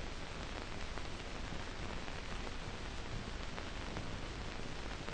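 Steady hiss of an old film soundtrack, with no other sound.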